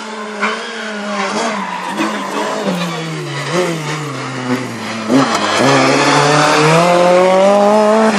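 Rally car engine coming closer, its revs rising and falling as it brakes and changes down, with a few sharp cracks. It then accelerates hard past, the engine note climbing steadily and getting louder near the end.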